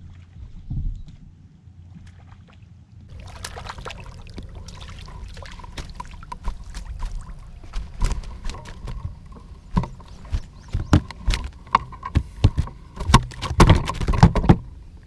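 Water splashing and sloshing through a landing net as it scoops a fish beside the boat, heard up close from a camera mounted on the net. From the middle on come many sharp knocks and rattles, loudest near the end as the net is swung aboard onto the boat deck.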